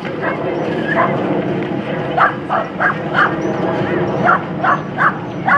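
Dog barking in short, high yaps: a couple of spaced ones at first, then a quick string of them from about two seconds in, over a steady background rumble.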